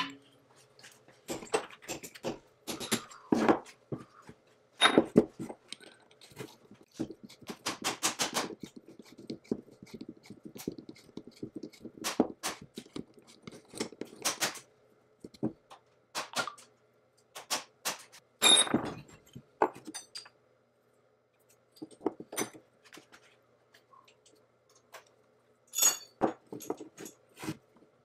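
Steel parts of a small two-jaw lathe chuck being handled and refitted: irregular metallic clicks, clinks and short scrapes as the jaws slide in and the jaw screws are turned with a T-handle wrench, some coming in quick clusters.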